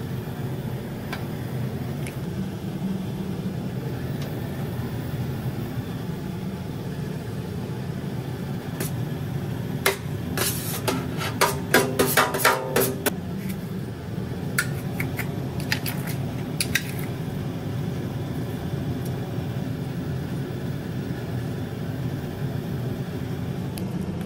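Metal ladle knocking and scraping against a wok as rice is tipped in and stirred, a cluster of sharp clanks about ten to thirteen seconds in and a few lighter taps after. Under it is a steady low kitchen rumble.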